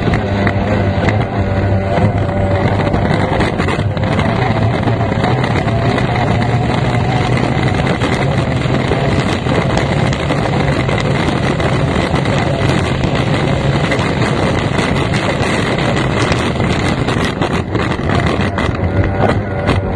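F1 tunnel-hull powerboat's outboard racing engine running at speed, heard from the cockpit, a loud steady drone with small changes in pitch, mixed with wind and water rush.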